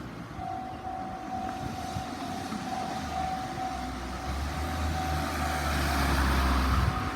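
Japanese railway level crossing's electronic warning alarm starting to sound about half a second in and carrying on. Under it, a low vehicle rumble builds and is loudest just before the end.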